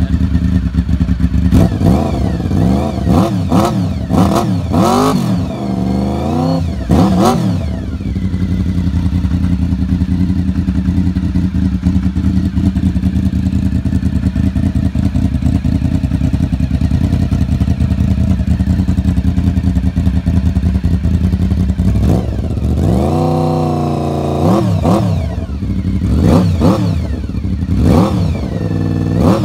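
A 1990 Honda VFR750F's V4 engine idling loudly with its slip-on silencer removed. The throttle is blipped several times in quick succession about two seconds in, then it settles to a steady idle; near the end it is revved once for longer and blipped a few more times.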